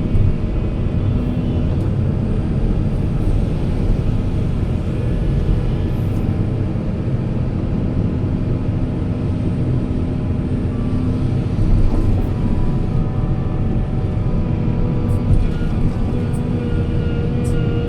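Heavy diesel engine of earthmoving machinery running steadily, a deep continuous rumble with a faint steady whine held above it.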